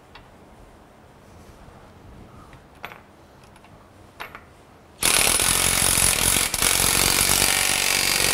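Cordless impact wrench driving a bolt into the stub shaft assembly of a motorcycle bolt-on rake kit. It starts abruptly about five seconds in, after a few faint clicks of metal parts being handled.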